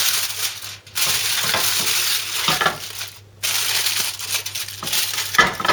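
Aluminium foil crinkling and rustling as it is pressed over the cooked chicken to keep it warm, in three long stretches with short pauses about a second in and just past three seconds.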